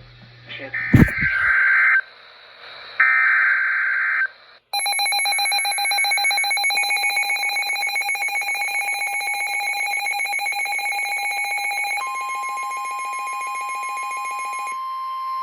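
Emergency Alert System alert tones: two screechy digital header data bursts, each about a second long, then a long pulsing two-tone attention signal. About twelve seconds in, a steady single tone takes over.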